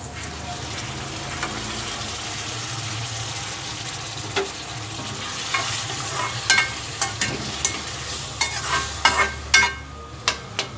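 Liquid from boiled mutton poured into a hot kadai of fried onions, sizzling steadily. From about six seconds in, a steel spoon stirs and scrapes the pan, with a run of sharp clinks against the metal.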